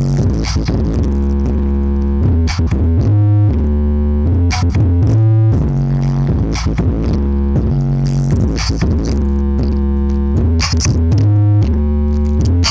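Loud electronic dance music with heavy, deep bass notes and a regular beat, played through a large sound system of six speaker boxes during a sound check.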